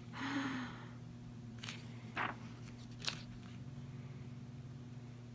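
Paper rustling with a few light taps as large photo prints are handled: a short rustle right at the start, then three sharp ticks over the next few seconds, over a steady low hum.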